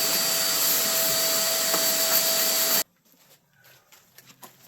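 A loud, steady machine whir with a fixed whine, like a vacuum or blower motor, cutting off abruptly a little under three seconds in. Faint clicks and knocks follow.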